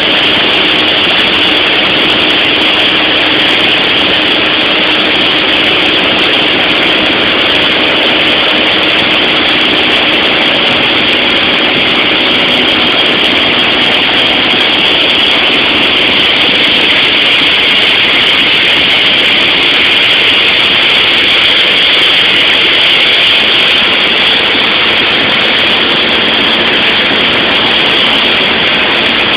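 Steady, loud drone of a light aircraft's engine and propeller heard inside the cabin in cruising flight, with faint steady engine tones under a loud rushing hiss.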